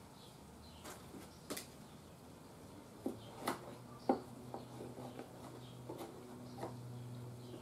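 Scattered light clicks and taps of hand work at a bench while loose cabinet wood is being glued. A steady low hum comes on about three seconds in.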